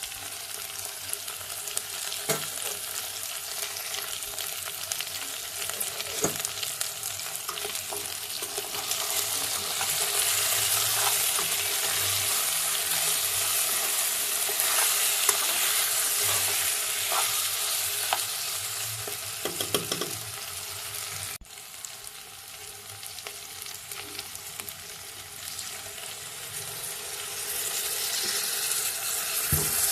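Food sizzling as it fries in a hot pan, with scattered clicks and scrapes of a utensil stirring it. The sizzle cuts off sharply for an instant about two thirds through, then carries on.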